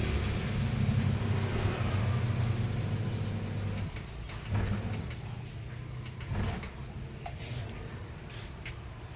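A steady low motor rumble that drops away about four seconds in, followed by a few light knocks.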